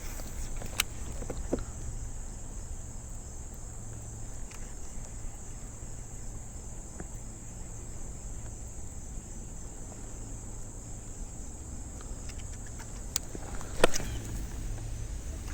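Insects chirring steadily at a high pitch, with a low background rumble and a few short knocks, the loudest one near the end.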